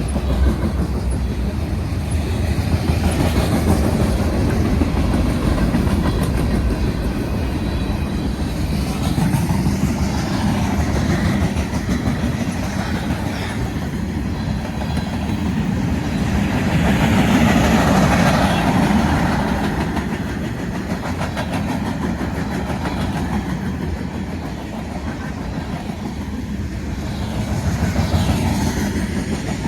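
Freight cars of a BNSF manifest train rolling past, their steel wheels running on the rails in a steady rumble that swells louder a little past the middle.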